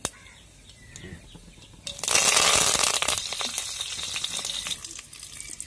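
Mustard seeds crackling in hot oil. About two seconds in, curry leaves hit the oil and set off a loud burst of sizzling and spluttering that dies down over the next couple of seconds.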